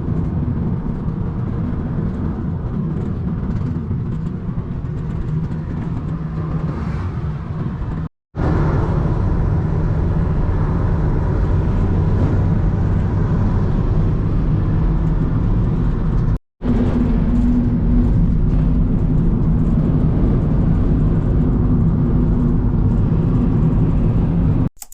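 Strong wind buffeting an action camera's microphone during a ride: a loud, steady low rumble, broken twice by sudden brief silences.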